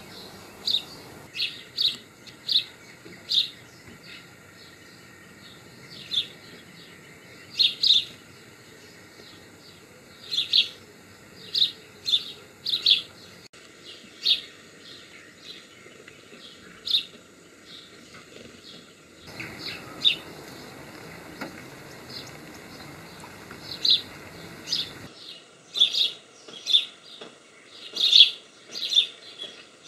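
Small songbirds chirping: short, high chirps, some single and some in quick runs of two or three, coming more often near the end.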